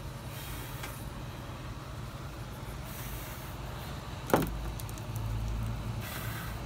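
A knife cutting through a plucked chicken's leg at the knuckle joint, with one sharp snap a little over four seconds in as the joint is cut through. A steady low rumble runs underneath.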